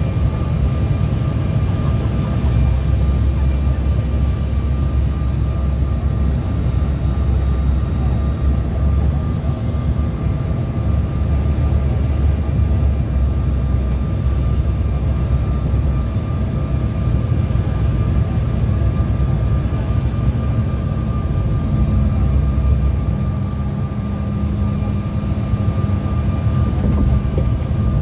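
Steady airliner cabin noise on final approach: a low rumble of engines and airflow with a thin, constant whine above it.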